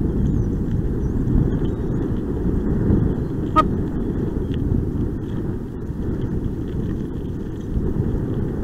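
Kickbike's wheels rolling over a rough dirt trail: a steady low rumble, with one sharp click about three and a half seconds in.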